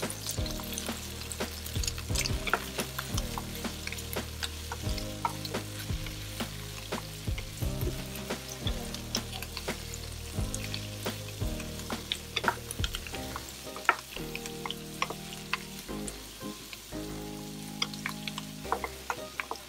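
Napa cabbage stir-frying in oil in a nonstick pan: a steady sizzle broken by frequent clicks and scrapes of a wooden spatula tossing the pieces. Background music plays underneath.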